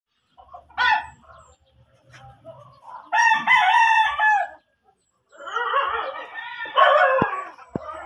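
Rooster crowing: two long drawn-out crows, starting about three and five seconds in, after a short call near the start.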